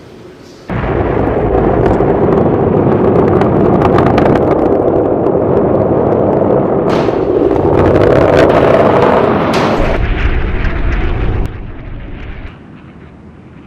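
Missile launch: the rocket motor's noise starts suddenly about a second in and holds as a loud, crackling rush. It drops away near the end.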